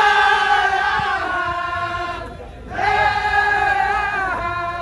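Crowd of Baye Fall disciples chanting in unison in two long held phrases, the second beginning about three seconds in after a short breath.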